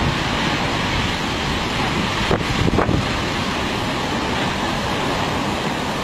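Heavy surf breaking on a rough, stormy sea, mixed with strong wind buffeting the microphone, a steady noise throughout with a couple of stronger buffets a little past the middle.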